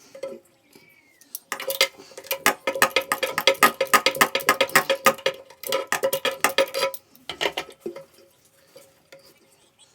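Rapid clicking and rattling of small hard objects being handled, dense and loud for several seconds, then a short burst of the same near the end.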